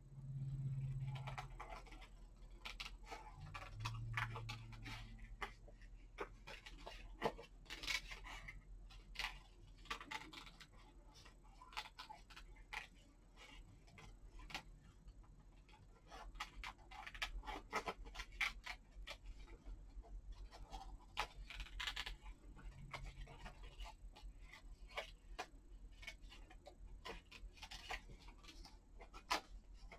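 Small scissors snipping paper in many short, irregular cuts while trimming around a printed image.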